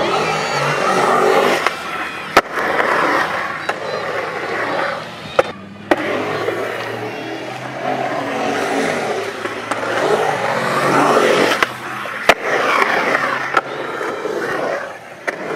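Skateboard wheels rolling and carving on a concrete bowl. The rolling noise swells and fades with each pass, with a few sharp clacks from the board.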